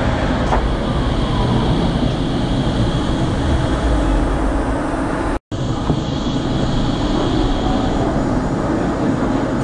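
ADtranz GT6N low-floor tram running on street track, heard from inside at the front: a steady low rumble of wheels on rail, with a high steady whine over it that fades about eight seconds in. The sound cuts out for a split second about halfway through.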